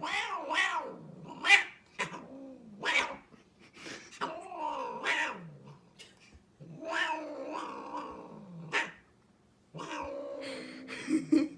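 A cat yowling and meowing in a run of separate drawn-out calls, each bending up and down in pitch, with short pauses between them.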